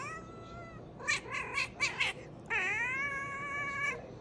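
Tabby cat meowing: a rising meow, a quick run of four or five short meows, then one long drawn-out meow.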